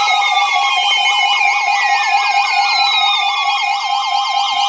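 Electronic weather-alert siren from a radio receiver: a fast warbling tone, with slower tones sliding down in pitch over it and steady high tones underneath, several alert sounds overlapping.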